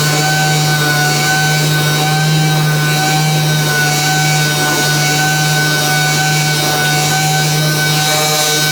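An electric motor, such as a power tool's, running steadily at constant speed with a high whine.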